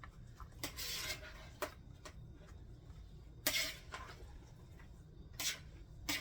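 A spoon stirring and tossing cucumber salad in a bowl: a few scattered scrapes and clinks of the utensil against the bowl, the loudest about three and a half seconds in.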